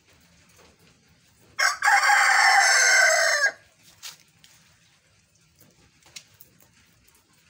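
A rooster crows once, a short, lazy-sounding crow of under two seconds: a brief catch, then one held note that cuts off, unlike a full cock-a-doodle-doo.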